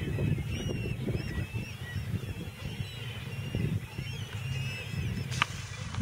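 A large flock of gulls and shorebirds calling: many short, overlapping high calls, over an uneven low rumble, with one sharp click near the end.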